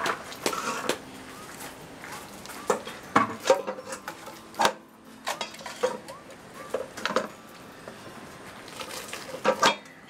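Stainless steel bowls clinking and knocking at irregular intervals as raw poultry is handled in one bowl and cut pieces are put into the other.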